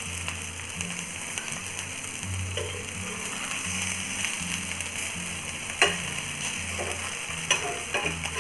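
Potato tikkis sizzling steadily as they shallow-fry on a tawa, while a metal spatula turns them over. A few sharp clicks of the spatula against the tawa stand out, the loudest about six seconds in and more near the end.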